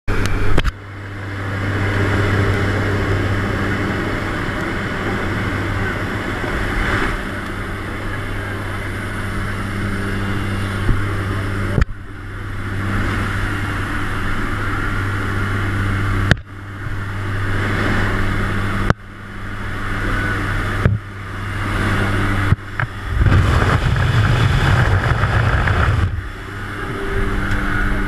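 Steady drone of a skydiving jump plane's engine and propeller, with wind rushing past the open door. It is broken by several abrupt cuts.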